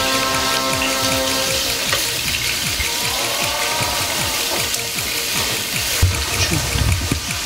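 Pork belly sizzling and crackling in a frying pan over a gas burner, a steady fine hiss, under background music whose held notes stop about a second and a half in.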